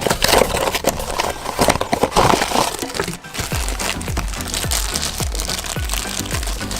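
Crinkling and tearing of a toy's blind-box packaging being ripped open, over background music with a hip-hop beat. The crinkling dies away after about two and a half seconds, and the beat of deep, falling bass hits carries on.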